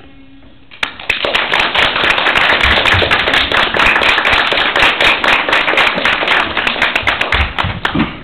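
Small audience applauding: clapping breaks out about a second in, dense and loud, and tapers off near the end.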